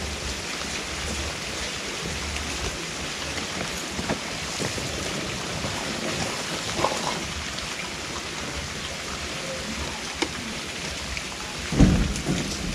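Steady rain falling, an even hiss throughout, with a few light knocks and a louder thump near the end.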